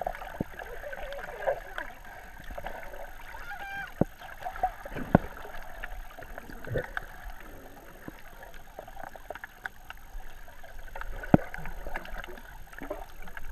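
Underwater sound heard through a GoPro's waterproof housing: a steady muffled water hiss with wavering gurgles and scattered sharp clicks and knocks, the loudest click about eleven seconds in.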